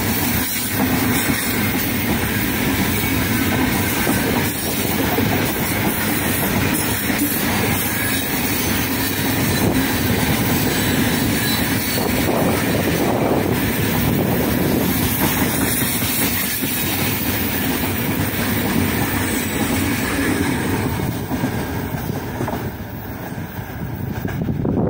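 Open gondola wagons of a freight train rolling past close by at speed: a steady, loud rumble and clatter of the wheels on the rails. It eases off a couple of seconds before the end as the last wagons go by.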